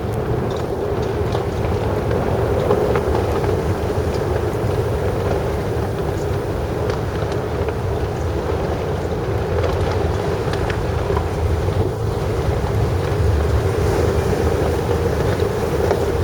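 Steady blizzard wind blowing across the microphone, over a constant low rumble.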